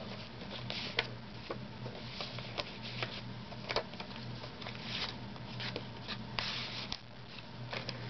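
Paper pages of a handmade journal being turned and a flip-out page folded back by hand: soft rustles and brushes with scattered light ticks, over a low steady hum.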